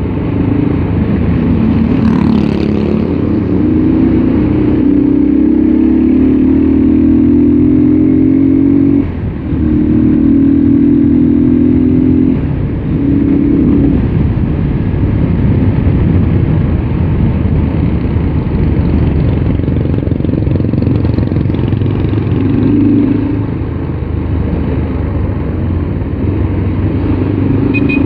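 Yamaha Scorpio Z single-cylinder four-stroke motorcycle engine under way, pulling up through the revs in a few rising stretches broken by a short dip about nine seconds in, then running at a steadier speed. Wind rushes over the action-camera microphone throughout.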